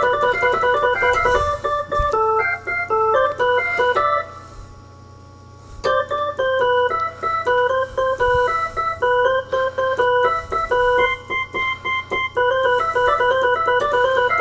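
Electronic keyboard with an organ sound playing an instrumental passage of short, steady notes and chords. It breaks off for about a second and a half around four seconds in, then picks up again.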